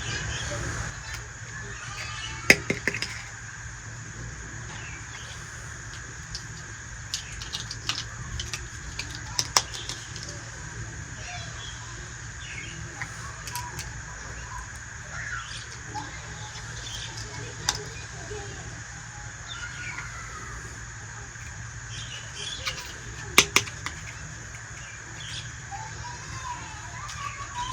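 Occasional sharp clicks and taps of small hard objects being handled, a few seconds apart, over a steady background hum, with faint bird chirps in the background.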